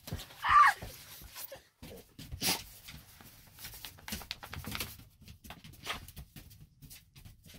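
A dog moving about on a bed close to the phone: fabric rustling and scattered bumps and clicks as the phone is jostled, with one short high-pitched cry about half a second in.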